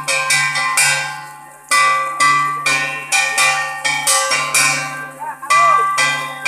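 Metal bells struck over and over, roughly two strikes a second at an uneven pace, each strike ringing on with clear bright tones, over a low steady drone.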